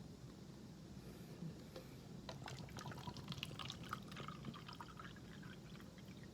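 Coconut water with pulp being poured into a small cup: faint, irregular splashing and trickling, busiest from about two to five and a half seconds in.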